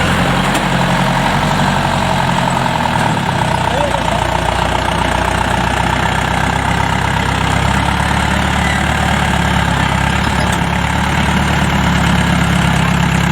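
Heavy farm diesel engine running steadily close by, its pitch shifting about three seconds in and again near the end, with a steady whine above it.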